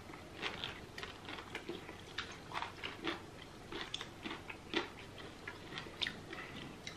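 People chewing and biting into isi ewu (spiced goat head) eaten by hand: a scatter of short, irregular mouth clicks and smacks.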